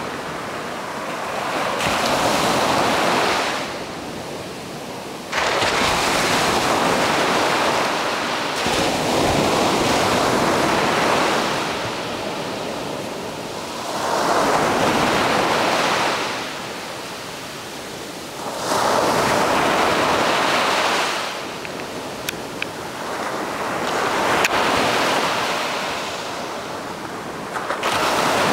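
Ocean surf breaking and washing up a sandy beach, the rush of each wave swelling and fading every few seconds.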